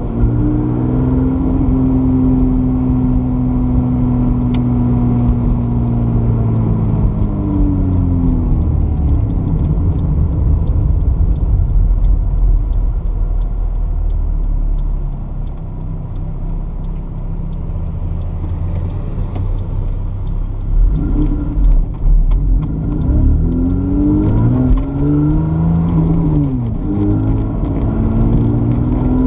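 Swapped-in Toyota 2GR-FE 3.5-litre V6 in a mid-engined Toyota MR2, heard from inside the cabin: its pitch falls as the car slows almost to a stop, and it runs as a low rumble for a while. In the last third the revs rise again in several climbing sweeps, each dropping back at a gear change as the car accelerates.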